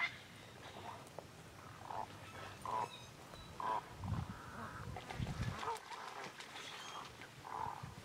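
Great egrets in a flock giving short croaking calls, about ten scattered through. A low rumble comes near the middle.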